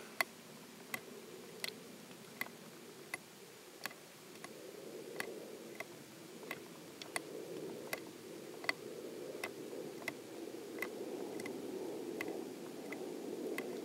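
Small, sharp clicks about every three quarters of a second as the button of a Shooting Chrony Alpha chronograph is pressed again and again, stepping through the recorded shot numbers and velocities. A faint steady low hum lies underneath.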